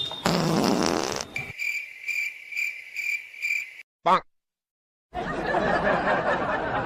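Wet fart sound lasting about a second, followed by cricket chirps repeating about twice a second. A brief warbling sound comes next, then a second of dead silence, then voices and background noise near the end.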